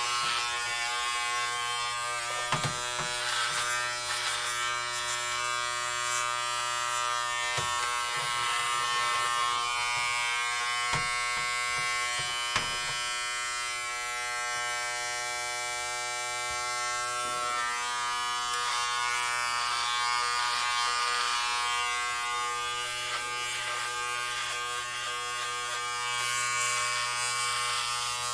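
Electric hair clippers buzzing steadily as they cut hair, with a few short sharp clicks.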